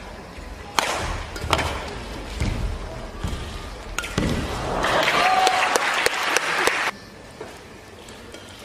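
Badminton rackets striking a shuttlecock in a rally, a string of sharp smacks, with the arena crowd. About four seconds in, the crowd rises into loud cheering and applause, which cuts off suddenly near the seventh second.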